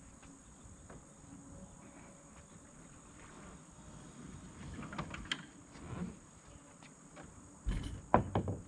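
Hobie Outback kayak's plastic hull knocking against the pickup's bed-rail crossbar as it is pivoted down, then a few loud knocks near the end as its end comes down onto the pavement. Insects chirr steadily and high-pitched throughout.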